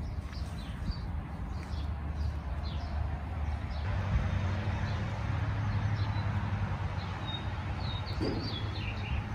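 Songbirds chirping in short high calls, a few early on and a cluster near the end, over a steady low hum of outdoor background noise.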